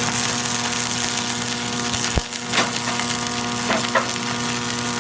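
Stick-welding arc burning steadily: a continuous crackling hiss over a buzzing hum, with a few sharper pops in the middle.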